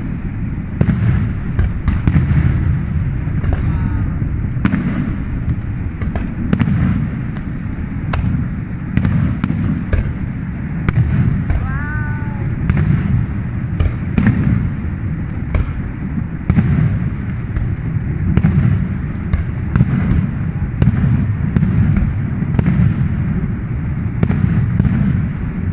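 Fireworks going off: many sharp bangs and crackles, some in quick clusters, over a steady low rumble.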